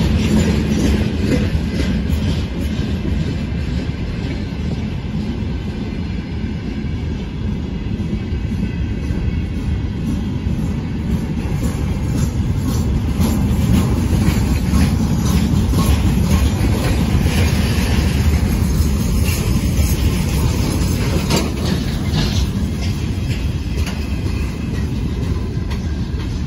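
Freight train wagons rolling past on the rails: a steady rumble with the clatter of wheels over rail joints.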